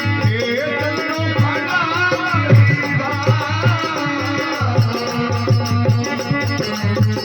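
Rajasthani folk bhajan music: held steady notes under a wavering melody, with regular drum beats and a rattling percussion accompaniment.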